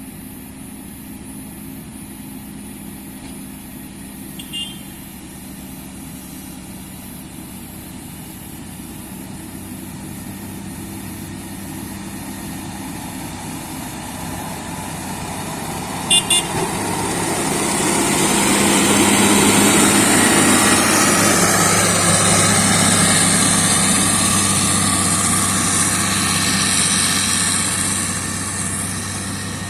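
Heavy diesel machinery engine running, growing steadily louder to a peak a little past halfway, then easing off slightly. A short sharp double blip cuts through about halfway, with a fainter one earlier.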